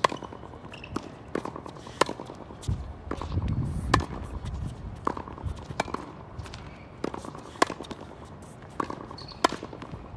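Tennis ball struck hard by a racquet about every two seconds in a baseline rally, with the ball's bounces on the hard court between the hits. A brief low rumble comes around three to four seconds in.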